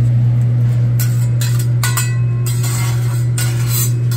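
Metal spatulas scraping and clinking on a teppanyaki griddle: half a dozen short strokes, one about two seconds in with a brief metallic ring. A steady low hum runs underneath.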